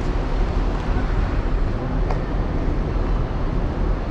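Steady low rumble of road traffic, with cars and taxis moving through a covered concrete pickup area.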